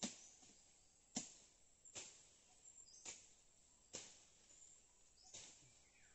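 Machete (bolo) slashing through undergrowth: six sharp cuts, about one a second.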